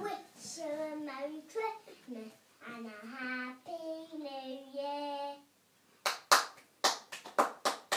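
A young child singing a few held notes of a song, then hands clapping: a quick, uneven run of about ten claps near the end.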